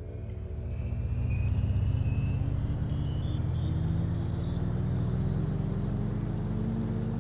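A motor running steadily, getting louder about a second in, with its pitch slowly rising.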